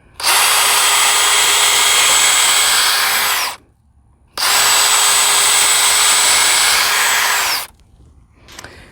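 Power drill pre-drilling pilot holes in wood: two steady runs of about three and a half seconds each with a short pause between, the motor winding down as the trigger is released each time.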